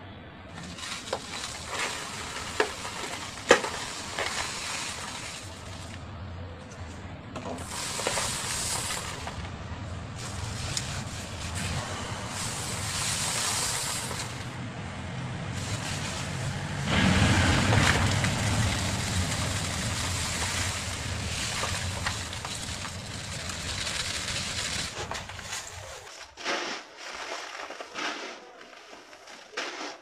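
Dry, dusty concrete mix poured in a steady stream into a plastic bucket: a continuous gritty rush that swells louder about halfway through. It stops a few seconds before the end, leaving scattered crumbly patters as hands scoop up handfuls and let them fall back.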